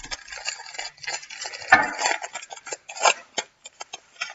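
A baseball card pack's wrapper being torn open and crinkled by hand, a dense crackling that peaks just before two seconds in and again around three seconds, then a few lighter crackles.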